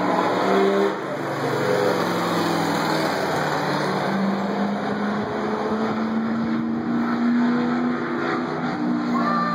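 Race car engine running at speed around an oval track, its note slowly rising and falling as the car accelerates and eases off.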